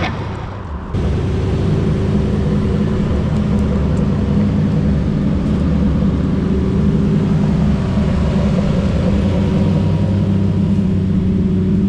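A sports car engine running at a steady speed, a low even drone that steps up in loudness about a second in.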